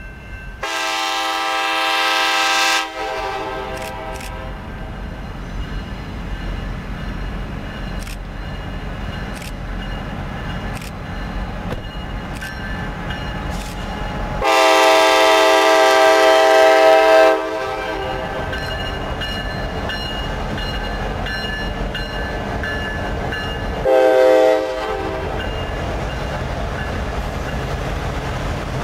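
Diesel locomotive air horn on a Norfolk Southern F9A sounding three times: a long blast about a second in, a longer one about fourteen seconds later, then a short one near the end. Between the blasts the F units' diesel engines and the wheels on the rails rumble steadily as the train closes in and passes.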